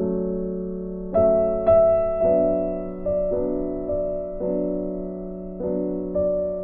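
Background piano music, slow chords and single notes changing every half second to a second.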